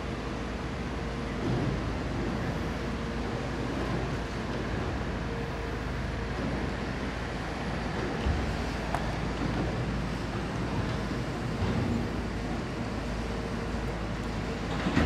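Caterpillar 340F long-reach excavator's diesel engine running steadily while it works, with a few faint knocks.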